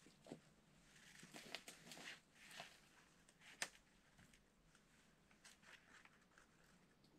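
Faint rustling and scattered small clicks, as of someone handling cord and fabric, with one sharper click about three and a half seconds in.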